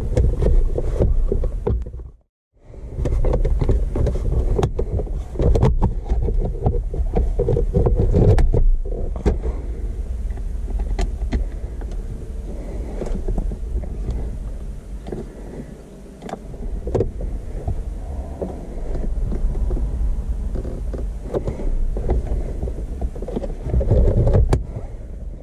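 Hands working the plastic gear-selector surround of an automatic car: the two plastic halves snap together, screws go back in, and the lever is moved, giving repeated clicks and knocks. A steady low rumble runs underneath, and the sound drops out briefly about two seconds in.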